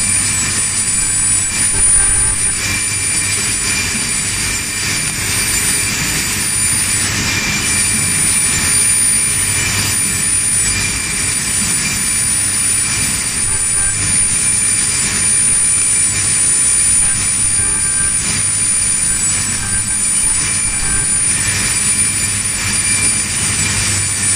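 Loud, steady machinery noise: a continuous drone with a low hum and a high, unchanging whine.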